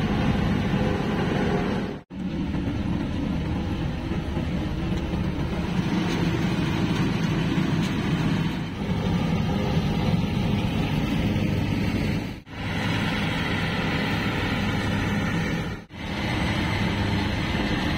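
Claas Jaguar 850 forage harvester running under load, chopping standing oats, with a tractor working alongside: a steady, dense machine drone. The sound drops out briefly three times, at about 2, 12 and 16 seconds in.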